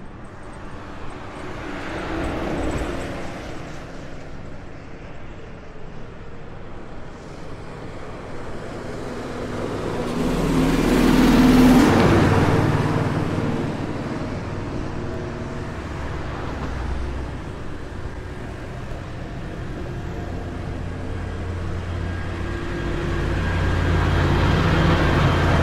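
Traffic noise of passing vehicles, swelling and fading in long waves, loudest about halfway through and again near the end, over a low steady hum.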